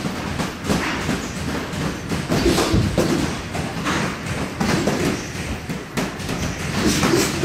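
Two boxers sparring in a ring: a busy, irregular run of thuds, knocks and scuffs from feet moving on the canvas floor and gloves landing.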